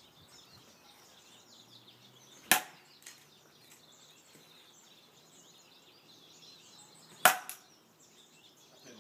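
Plastic toy bat hitting a pitched ball twice: two sharp cracks about five seconds apart, each followed shortly by a smaller knock.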